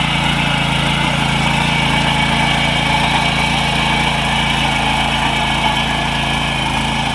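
Power weeder's small engine running at a steady speed.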